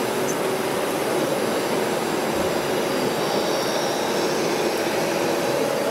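Steady whirring machine din from a radio-controlled scale Komatsu WA470 wheel loader driving over loose soil, running evenly without revving or stopping.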